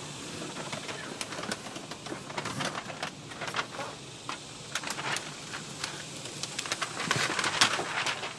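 Sheet of foam boat decking being handled and laid into an aluminum jon boat: irregular rustling, crinkling and soft knocks, with a louder stretch of rustling near the end.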